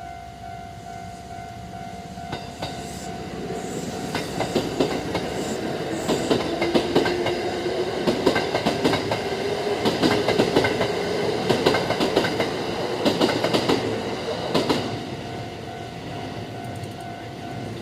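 Kintetsu Kyoto Line train passing through a level crossing, its wheels clattering over the rail joints with a slowly rising motor whine, loudest in the middle and fading after about 15 seconds. Throughout, the crossing's electronic warning bell rings in a steady repeating clang, stopping shortly before the end.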